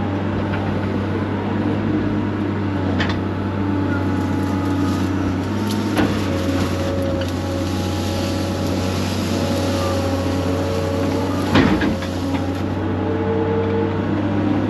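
Excavator's diesel engine running steadily under load, with shifting hydraulic whine as the machine works, and a few sharp knocks, the loudest about three-quarters of the way through.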